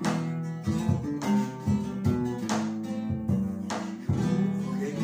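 Instrumental passage of an Argentine zamba: acoustic guitars strumming in a regular rhythm, with a bombo legüero drum struck with a stick.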